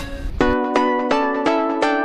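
Background music: a light run of plucked-string notes, evenly spaced at about three a second, starting about half a second in.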